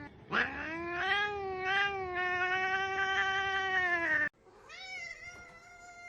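A cat yowling in one long, drawn-out call that wavers in pitch and cuts off suddenly about four seconds in. A second, quieter and higher-pitched cat call follows, rising at first and then held steady.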